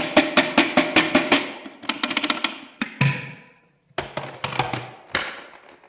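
Background music with a fast percussive beat of sharp knocking hits that thins out about two seconds in, followed by a few scattered, ringing hits.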